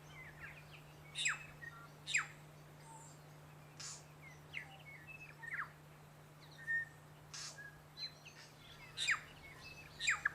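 New Zealand bellbird calling: short, sharp notes and quick downward-sweeping calls every second or two, over a faint steady low hum.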